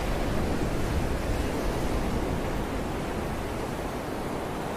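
Wind blowing across the camera microphone: a steady rushing noise with an uneven low rumble from the gusts.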